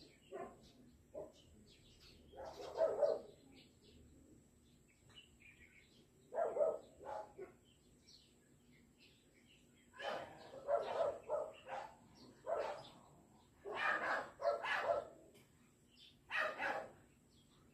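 A dog barking off and on, in short single barks and quick runs of two or three, a few seconds apart.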